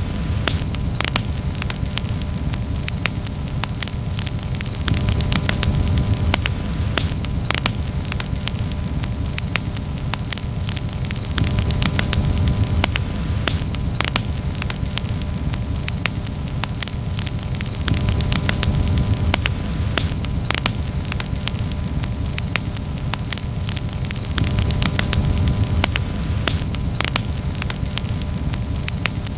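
Wood campfire crackling: frequent irregular pops and snaps over a steady low rumble of the burning fire.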